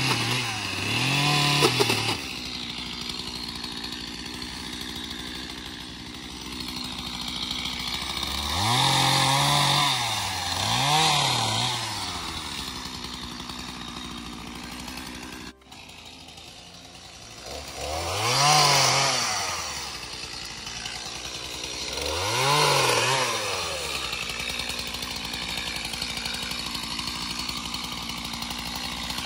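Stihl two-stroke chainsaw revving up and back down in short bursts, several times, and idling in between.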